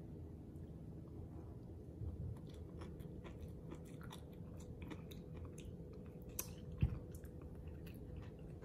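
A person chewing a mouthful of sea grapes (lato): a run of small clicks as they are bitten, with one low thump about seven seconds in.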